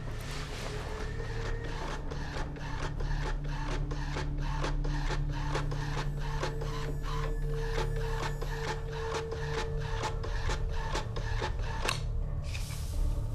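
Desktop printer printing a page: the print head and paper feed clatter in a rapid, even rhythm of about three clicks a second with a steady mechanical whine, stopping about twelve seconds in as the page finishes.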